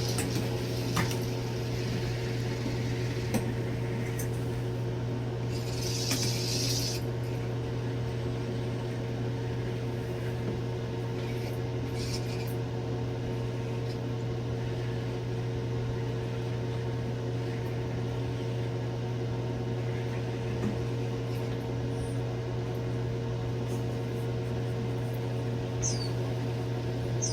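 Steady low mechanical hum with several steady tones, with a few faint clicks and two short hissy rustles, then a few short high chirps near the end.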